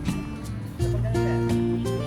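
Background music with held notes over a bass line that moves to a new note about 0.8 s in.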